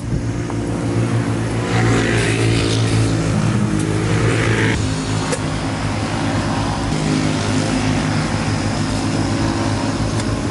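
Small engines of racing lawn mowers running steadily, with the pitch shifting up and down between about two and five seconds in.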